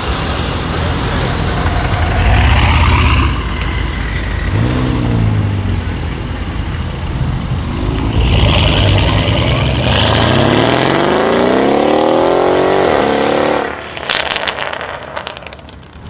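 Mercedes S63 AMG W221 V8 with a custom exhaust accelerating hard away from the car meet, revs climbing, then one long full-throttle pull that rises steadily and cuts off sharply. A few sharp crackles follow as it lifts off.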